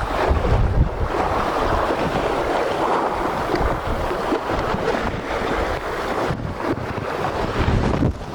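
Steady wind buffeting the microphone over the wash of sea waves along the shore.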